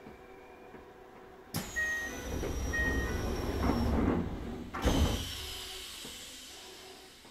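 Passenger doors of a Keisei 3000 series commuter train sliding at a station stop. A sudden rush of sound about a second and a half in carries a falling high whistle and two short beeps. A second burst comes just before five seconds and fades away.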